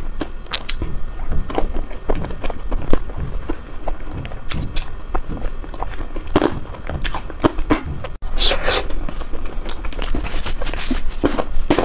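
Close-up chewing of ice cream: irregular wet crunches and clicks of bites being chewed. It breaks off for an instant about eight seconds in, then comes back as denser crunching.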